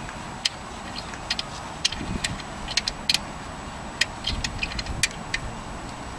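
Irregular sharp metallic clicks from a 14 mm wrench working an alternator mounting bolt loose, with a few dull knocks of metal against the engine.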